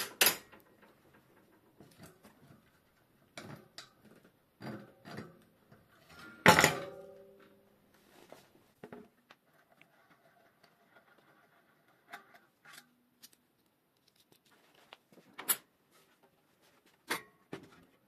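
Scattered clicks, knocks and metal clinks from tools and parts being handled while a fatbike's front wheel is taken off, with one loud metallic clank about six and a half seconds in that rings briefly.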